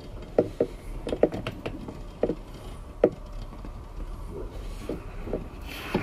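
Passenger railway carriage starting to move, giving a series of irregular sharp knocks and clanks over a low rumble, bunched in the first couple of seconds and then sparser. A short hiss comes near the end.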